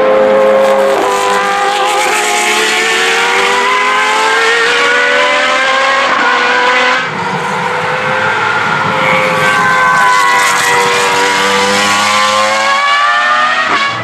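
Several single-seater racing cars' engines running hard together, their overlapping notes climbing in pitch and dropping back at each upshift as the cars accelerate. About halfway through the sound changes abruptly.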